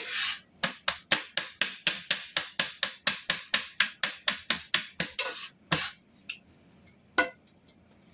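Kitchen scissors snipping green onions: a quick, even run of crisp snips, about four or five a second, that stops about five seconds in, followed by a few scattered snips.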